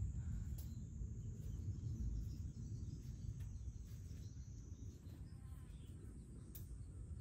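Outdoor summer ambience: an uneven low rumble with a faint, steady, high-pitched insect trill that fades out about five seconds in, and a few faint clicks.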